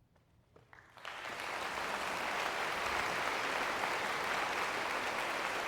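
Concert hall audience breaking into applause about a second in, just after the band's final note has died away, then clapping steadily.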